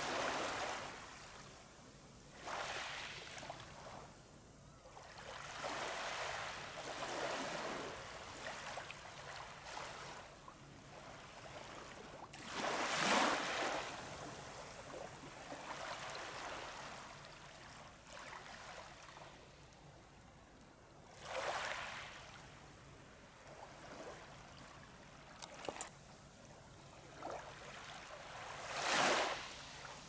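Small waves washing up and draining back on a sandy beach, a hissing wash that swells and fades every few seconds, with three louder surges.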